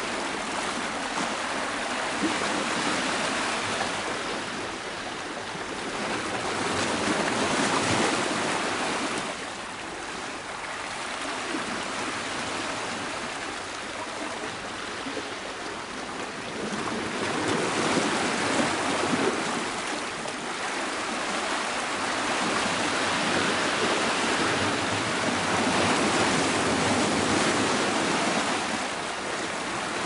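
Choppy sea washing and splashing against shoreline rocks, a steady rush that swells and eases every several seconds with the waves.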